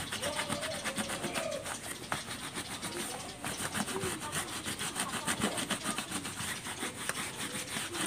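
A cloth rubbed quickly back and forth over a rubber inner tube, wiping the area around a puncture dry before it is patched.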